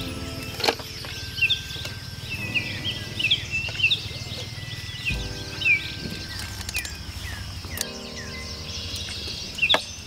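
Birds chirping in short repeated calls over a steady insect buzz and soft background music with slowly changing chords. A few sharp clicks break through, once near the start and twice near the end.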